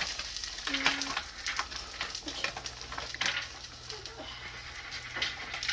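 Oil sizzling and crackling in a hot pan as frozen dumplings fry, a steady hiss studded with small pops. A short pitched voice-like sound comes about a second in.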